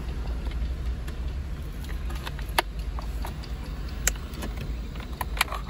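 Plastic wiring-harness plugs being handled and pushed into the sockets on the back of an aftermarket car Android screen, giving a few sharp clicks over a steady low rumble.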